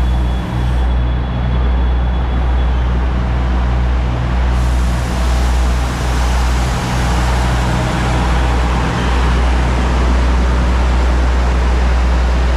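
Diesel locomotive of the narrow-gauge toy train running with a steady low engine drone. A broad hiss joins about four and a half seconds in.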